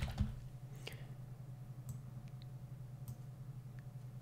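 A few faint, scattered computer mouse clicks, the loudest near the start and about a second in, over a steady low hum.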